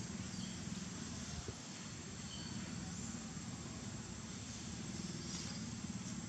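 Steady outdoor forest ambience: a continuous insect drone with faint high chirps, over a low, even hum.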